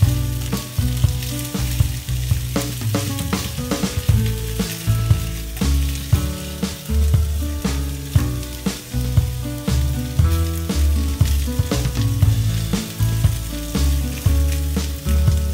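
Onion rings sizzling as they sauté in hot oil in a frying pan, with a spatula stirring and knocking against the pan. Background music with a loud bass line plays over it throughout.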